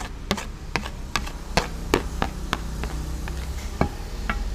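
A string of about ten sharp knocks, two or three a second, stopping shortly before the end, as chopped spices are knocked off a plastic cutting board into an earthenware mortar bowl.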